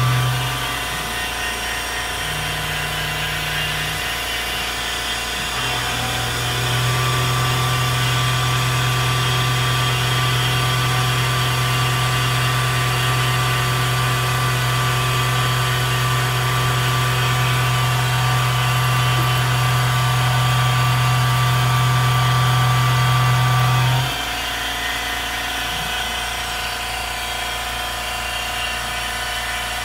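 PM-25MV milling machine's spindle running an end mill through aluminium soft-jaw stock under CNC control, with a steady machine whine and a strong low hum while the tool is in the cut. The hum breaks off twice early on, then holds until about 24 seconds in, when the cut ends and the machine runs on more quietly.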